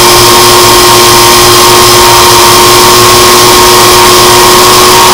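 Syma X8G quadcopter's motors and propellers running at a steady speed while it rests on the ground: a loud, steady whine over hiss, picked up close by its own onboard camera.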